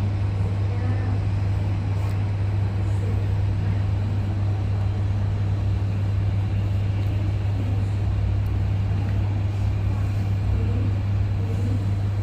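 Steady low-pitched machine hum with an even rushing noise, unchanging throughout, as from aircraft or airport air-handling machinery.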